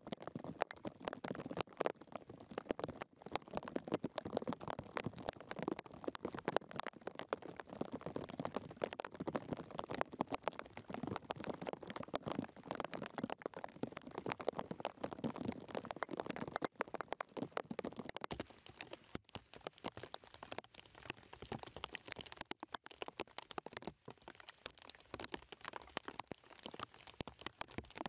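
Steady rain pattering, a dense run of irregular ticks.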